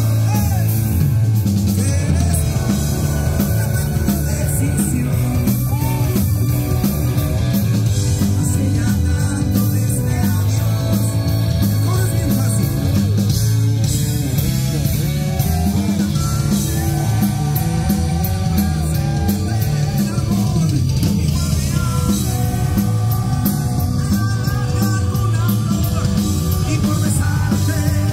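Live rock band playing at full volume: electric guitar, drum kit and keyboard, with a man singing over them.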